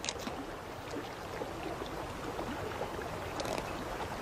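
Shallow river water running steadily over stones, with two faint clicks.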